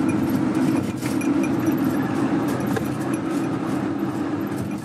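Car driving on the open road, heard from inside the cabin: steady engine and road noise with light clicking rattles.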